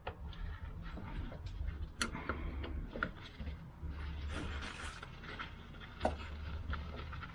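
Irregular clicks and short scrapes of hand tools and screws on metal engine parts, over an on-and-off low rumble of handling.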